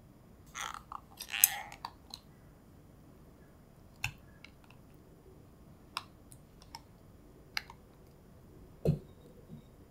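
Light clicks and clatter of wooden chopsticks and a plastic tub: a quick cluster of clicks about a second in, then single sharp taps every second or two as kimchi is pushed from the tub into a glass bowl of batter, and a duller, lower knock near the end.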